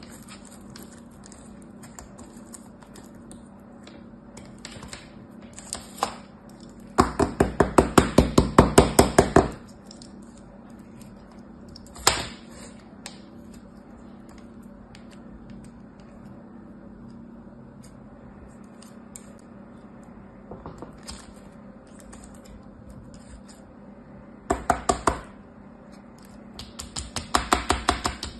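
Runs of rapid taps, about five or six a second, as fingers pat kinetic sand down into a hard shape mold: a long run a few seconds in, a single knock midway, and two shorter runs near the end, with soft rustling of sand in between.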